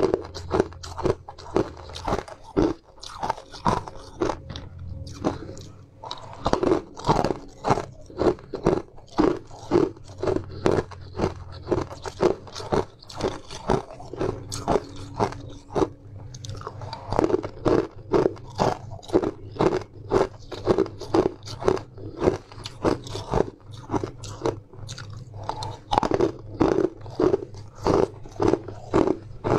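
Frozen honey ice being bitten and crunched between the teeth close to the microphone: a steady run of crunches at about two a second, thinning out to quieter chewing for a few seconds twice.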